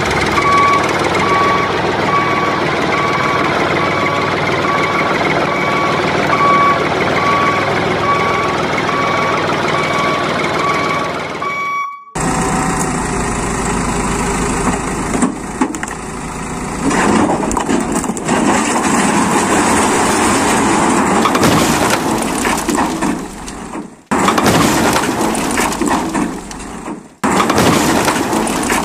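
Truck engine sound with a reversing beeper beeping steadily at an even pace for about the first twelve seconds. After a sudden break, rougher engine and rattling noise with knocks, cut by two brief drop-outs near the end.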